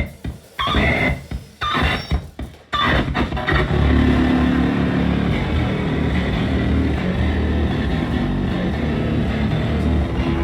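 Harsh noise music played loud: chopped, stuttering bursts of distorted sound for the first few seconds, then a continuous dense wall of low, rumbling distortion that holds steady.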